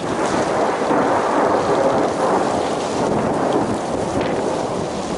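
Graupel (soft hail) pelting down in a steady, dense hiss of pellets landing.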